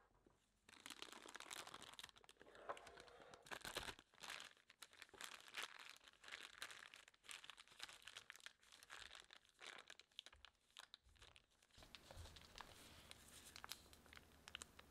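Clear plastic piping bag crinkling and crackling as a gloved hand squeezes and folds it around thick financier batter. The crinkling stops about twelve seconds in, leaving a faint low hum and a few soft clicks.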